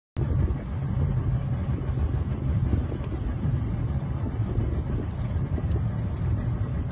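Small boat's engine running under way, a steady low rumble that cuts in suddenly just after the start.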